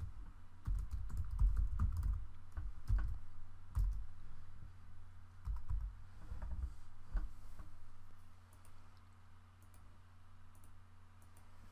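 Typing on a computer keyboard: bursts of quick keystrokes, thickest in the first few seconds and thinning out in the second half, over a low steady hum.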